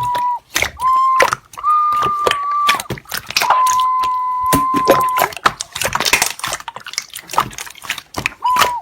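Slime being squeezed and pressed, with many crackling clicks and pops, over intermittent steady electronic beep tones that hold for up to about a second and a half and then break off.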